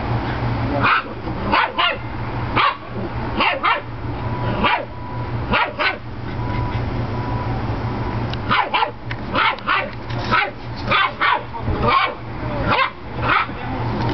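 A dog barking in short, sharp barks and yips during rough play between an Airedale puppy and a small dog. The barks come singly at first, then in a quick run through the second half, over a steady low hum.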